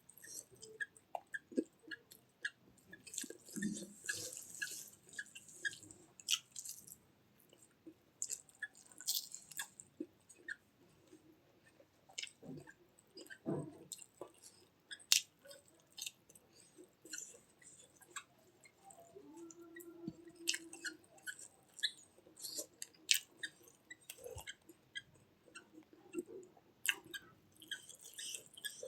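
Close-up mouth sounds of a person eating: chewing with wet smacking and irregular sharp clicks of lips and teeth.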